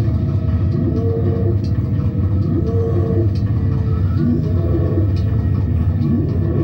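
Loud, steady low rumbling drone from a live experimental or noise music set, with short pitched tones and small pitch glides recurring above it about every second or two.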